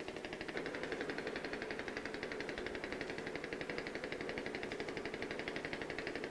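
Small outboard motor on an open canal boat running steadily, with a rapid, even putter.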